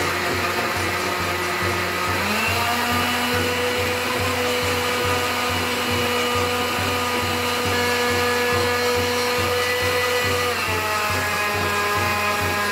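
Electric countertop blender running steadily, blending raw beetroot, carrot and orange juice, under background music with a steady beat.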